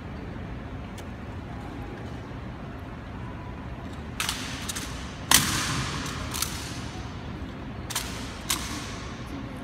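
Honor guard rifle drill with M1 Garand rifles: about six sharp, echoing claps and knocks of hands, rifles and boots striking in turn, starting about four seconds in. The loudest comes about five seconds in and rings through the marble hall.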